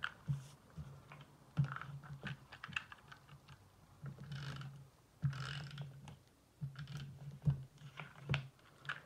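Tape runner adhesive dispenser laying adhesive along a pencilled line on cardstock: a string of sharp clicks with a couple of short rolling, scraping runs.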